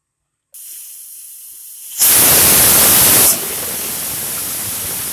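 Hawkins pressure cooker whistling: steam hisses out under the weight valve, starting about half a second in. It grows to a loud burst for about a second, then keeps on as a steady hiss. This is the cooker's whistle, the sign it has reached full pressure and the khichdi has had its one whistle of cooking.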